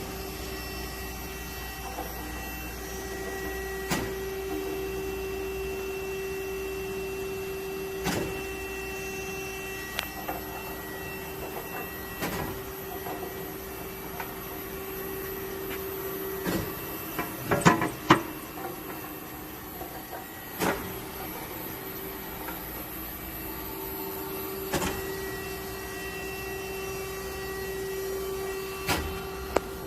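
Grinding machine running with a steady hum, a sharp knock about every four seconds, and a short burst of louder clatter a little past halfway.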